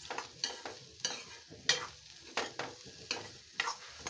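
Metal spatula scraping and knocking against a metal kadai while stirring dry, crumbly egg bhurji, about two strokes a second, over a light sizzle of frying.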